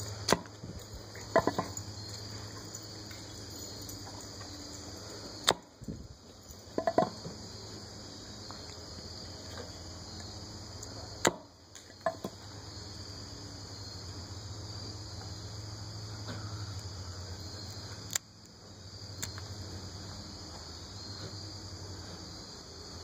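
Hatchet blade chopping Chinese chestnuts on a wooden chopping block, splitting the nuts open: sharp chops a few seconds apart, some in quick pairs, over a steady high-pitched insect background.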